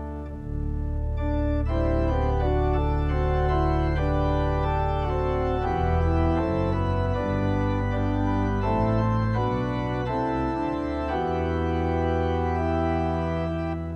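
Church organ played with full sustained chords over long held deep pedal bass notes. The bass and full sound come in about half a second in, and the chords change every second or so.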